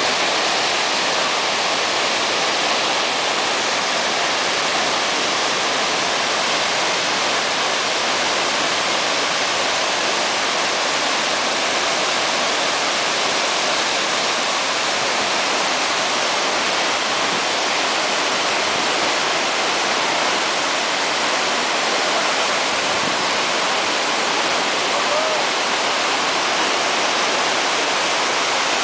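Iguazu Falls' Salto San Martín and neighbouring cascades thundering down: a loud, steady, even rush of falling water, more hiss than deep rumble, unchanging throughout.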